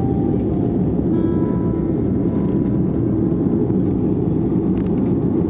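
Steady low rumble of an Airbus A330's engines and airflow, heard inside the passenger cabin during the climb after takeoff, with a faint steady tone above it.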